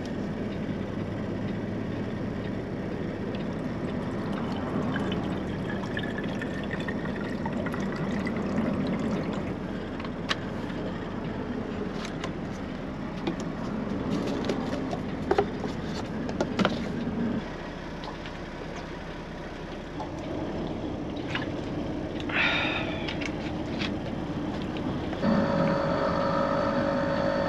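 Water poured from a plastic bottle into a single-serve coffee maker's reservoir, the pitch rising as it fills. Then several clicks and clatter as the machine is loaded and closed. Near the end the coffee maker starts brewing with a steady hum.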